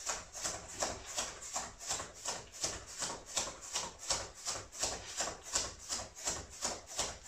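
Footfalls of someone doing a light jog on the spot, soft regular thuds and scuffs on the floor at about three steps a second.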